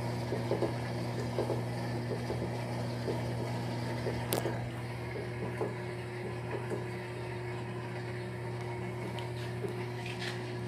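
Electrolux LT13B top-loading washing machine running its wash cycle: a steady motor hum with irregular soft knocks through the first half, the tone of the hum shifting slightly about halfway through.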